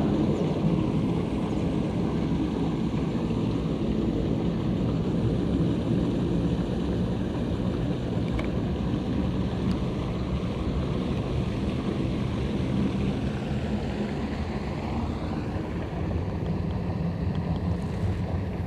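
A steady low rumbling noise that stops suddenly at the end.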